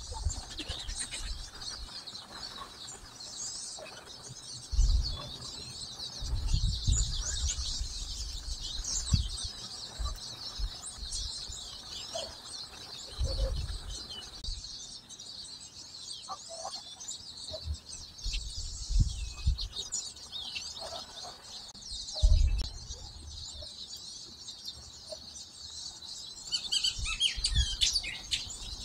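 A dense chorus of small songbirds chirping and twittering, with several brief low rumbles and a clearer run of falling notes from a closer bird near the end.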